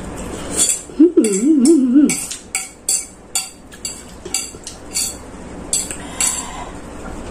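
Metal fork scraping and clinking against a ceramic plate, about a dozen light strikes at roughly two a second, as the last noodles are gathered up. A short wavering hum comes about a second in.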